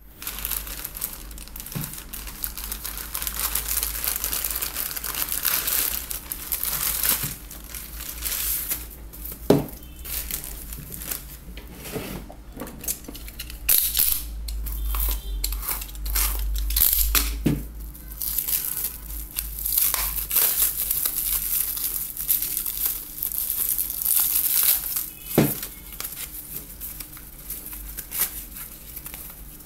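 Plastic courier bag and shrink-wrap crinkling and tearing as a package is unwrapped and cut open with a utility knife, then cardboard box flaps pulled apart. A few sharp knocks stand out along the way.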